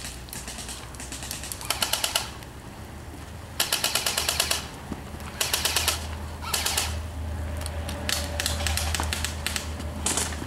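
Airsoft rifles firing a string of short full-auto bursts: a rapid clatter of shots, several bursts with brief gaps between them, some louder and nearer than others.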